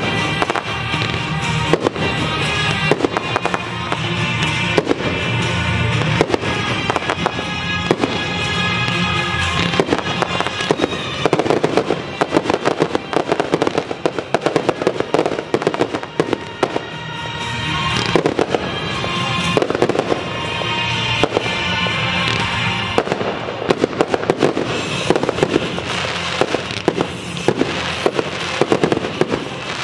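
Aerial firework shells bursting in rapid succession, the bangs growing denser in the second half, with music playing throughout.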